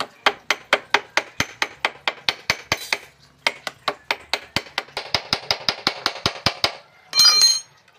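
Ring end of a steel wrench tapping gasket paper against the flange of a car thermostat housing to cut out a new gasket: quick, even taps about five or six a second, pausing briefly about three seconds in. Near the end there is a short ringing metallic clink.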